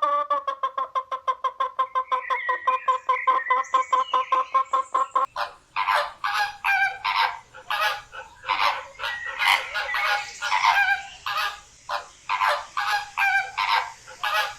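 Domestic fowl calling: a fast, stuttering pitched call for about five seconds, then a cut to a run of repeated harsh honking calls, roughly two a second.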